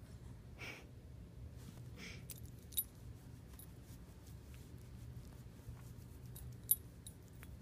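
Quiet sounds of a hand petting a dog's fur: a couple of brief soft rustles early on, and two short sharp clicks, one about three seconds in and one near the end, over a low steady hum.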